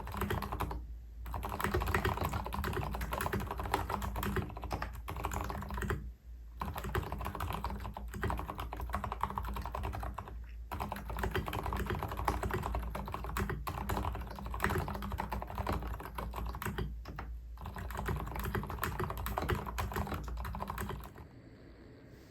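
Fast typing on a mechanical keyboard: a continuous clatter of keystrokes with a few short pauses, stopping about a second before the end.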